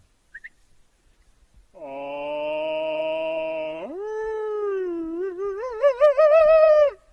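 A single long canine howl. It starts about two seconds in on a steady pitch, jumps higher about two seconds later, sags, then climbs with a wavering warble and stops suddenly near the end.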